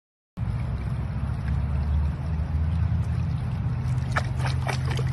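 Stream water rushing over rocks close to the phone's microphone, a steady low rumble starting about half a second in, with a few sharp splashes near the end as a hand releases a trout into the current.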